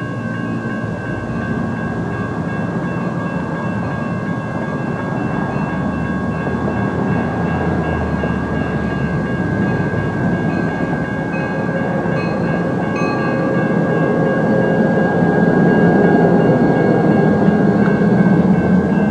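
EMD GP39-2 diesel locomotive, its 12-cylinder turbocharged engine running as it rolls slowly toward and past close by, the engine rumble growing steadily louder to a peak near the end. A thin, steady high-pitched tone runs through it.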